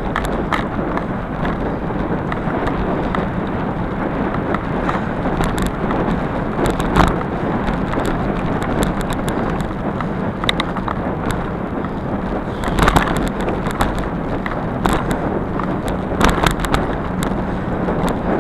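Bicycle rolling fast along a leaf-strewn dirt trail, heard from a camera on the bike: steady tyre rumble and wind on the microphone, with occasional knocks and rattles as it hits bumps.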